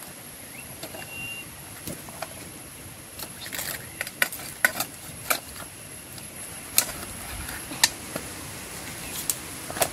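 A knife cutting a raw whole chicken into pieces: scattered short, sharp clicks and snaps as the blade goes through the joints, with soft rustling of the meat being handled, over a faint steady high hiss.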